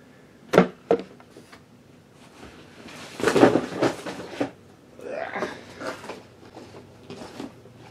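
Boxed action figures being moved and set aside by hand: two sharp knocks about half a second in, then cardboard and plastic packaging rustling and bumping twice.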